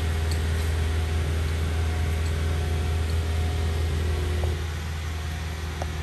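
Crane barge's engine running steadily with a deep, continuous hum; a higher tone in it drops away and the level eases slightly about four and a half seconds in.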